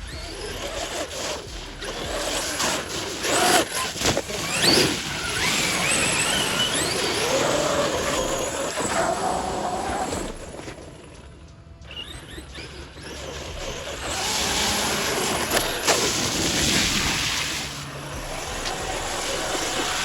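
Brushless electric motor of an Arrma Outcast 8S RC truck whining as it revs up and down, with tire and dirt noise; the sound drops away briefly about halfway through, then picks up again.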